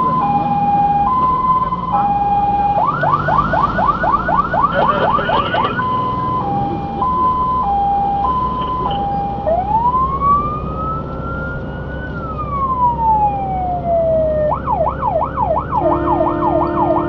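Fire engine siren heard from inside the cab on an emergency run, cycling through its modes. It starts on a two-tone hi-lo, switches briefly to a fast yelp, returns to hi-lo, then gives one long wail that rises and falls, and goes into a fast yelp again. A steady lower horn-like tone joins near the end, and the truck's engine rumbles underneath.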